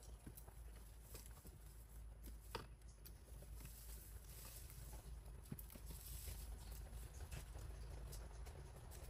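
Faint rustling and scattered light snips and clicks of wild betel (lá lốt) leaves being cut and handled, one sharper click about two and a half seconds in, over a low steady hum.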